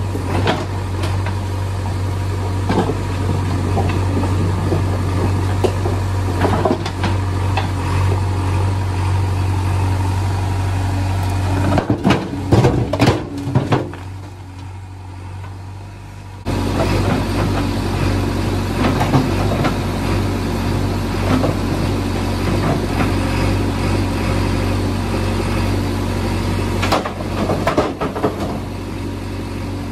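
JCB 3DX backhoe loader's diesel engine running steadily, with scattered clanks and knocks of rock and steel bucket. The loudest is a quick series of hits about twelve seconds in. The engine sound drops away for about two seconds in the middle and comes back abruptly.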